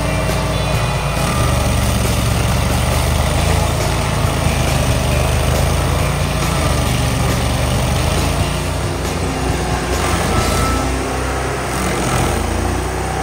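Carlton tracked stump grinder running loud and steady, its engine droning while the spinning cutter wheel grinds a stump down into the soil.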